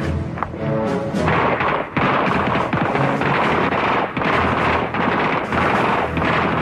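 A rapid string of revolver shots fired in quick succession, with music playing under them.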